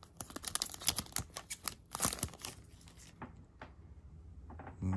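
Foil Yu-Gi-Oh! booster pack crinkling and cards sliding as they are pulled out of the opened wrapper: a rapid run of small crackles for the first two or three seconds, then only a few faint ones.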